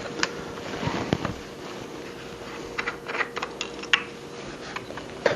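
Objects being picked up and moved about while rummaging: scattered clicks, taps and scrapes, over a faint steady hum.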